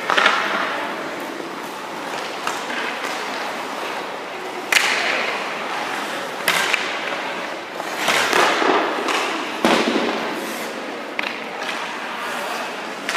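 Hockey goalie's skates scraping and carving on rink ice during movement drills, with several sharp knocks of stick and puck. The loudest knocks come about five seconds in and near ten seconds in.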